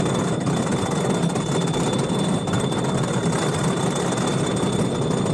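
The chain lift of a Custom Coasters International wooden roller coaster pulling the train up the lift hill. It makes a steady mechanical rattle with rapid clicking, and a thin high tone runs under it.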